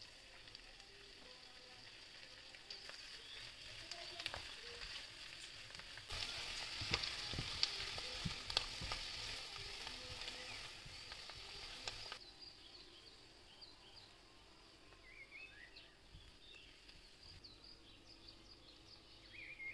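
Chicken livers and chopped fresh coriander sizzling in a frying pan while a spatula stirs them. The sizzle is loudest, with sharp clicks of the spatula against the pan, from about six to twelve seconds in, then dies down to a faint hiss.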